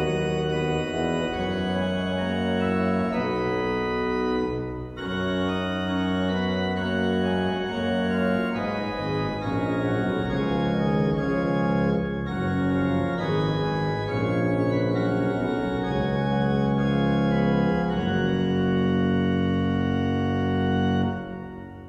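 Church pipe organ playing several notes at once, with a held bass under shorter moving notes above. The final chord is released about a second before the end and dies away in the church's reverberation.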